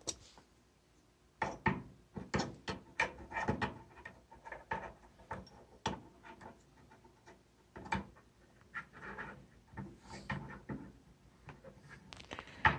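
Handling noise from a metal vernier caliper: irregular clicks, knocks and scrapes as its jaws are slid and closed on one step of a metal step thickness block. It begins about a second and a half in.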